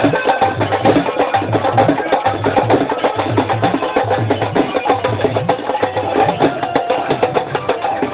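Music with busy, clicking percussion over a steady low drum beat and sustained melody tones.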